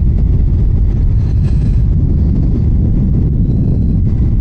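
A 2004 Honda VFR800's V4 engine running at a steady cruise on the move, mixed with a steady rumble of wind on the microphone.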